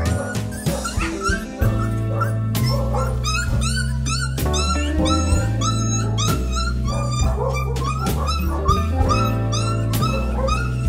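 Background music with a steady bass line, with many short, high-pitched puppy yelps and whimpers throughout.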